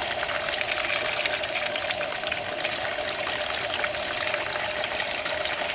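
Water from an outdoor spigot running steadily onto a plastic hedgehog exercise wheel and splashing against it.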